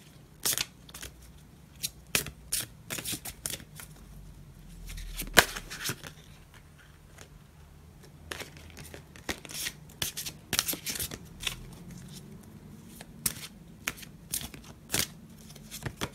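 Oversized oracle cards being shuffled and handled: irregular crisp snaps and quick riffling clusters, the loudest snap about five seconds in.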